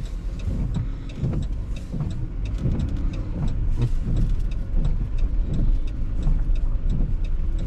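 Inside a car driving in heavy rain: steady low road and engine rumble, with many small sharp ticks of rain hitting the car.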